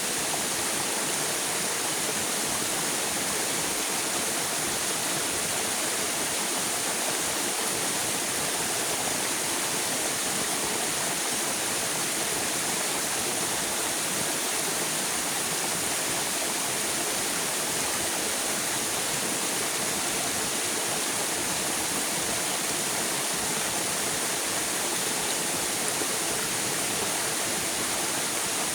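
River water rushing steadily, an even hiss of flowing water with no breaks or changes.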